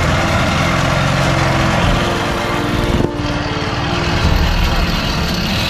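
Small gasoline engine of a long-tail boat motor running steadily, with a brief dip in its sound about three seconds in.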